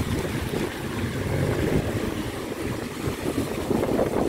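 Strong storm wind buffeting the microphone in uneven gusts, over the steady hiss of heavy rain on a wet road.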